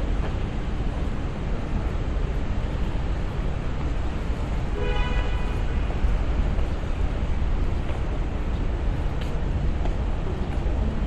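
Steady city street noise with a low traffic rumble, and a brief pitched call or tone about five seconds in.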